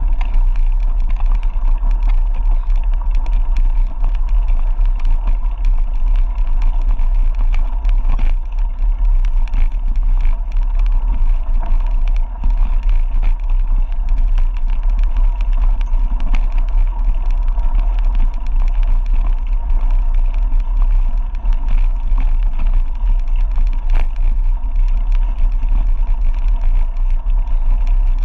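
Wind buffeting the microphone of a mountain-bike rider descending at speed, with the tyres and bike rattling over the trail: a loud, steady low rumble with scattered clicks.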